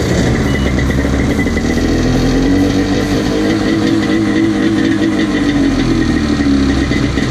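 Yamaha WaveRunner jet ski engine idling out of the water while a garden hose pumps fresh water through it to flush out the salt. The idle rises slightly in the middle and settles back.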